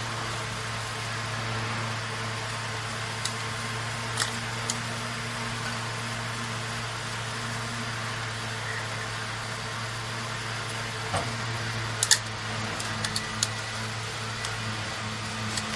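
Steady electrical hum of running equipment, with a few light metal clicks from the orbital weld head and its tube clamp fixture being handled and fitted together. The clicks come about three to five seconds in, and in a quick cluster of several about twelve to thirteen seconds in.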